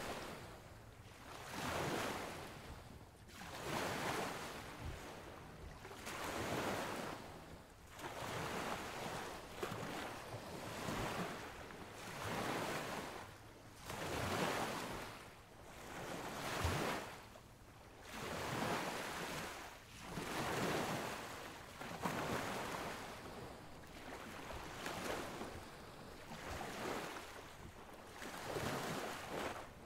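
Waves washing onto the shore, the surf noise swelling and fading about every two seconds.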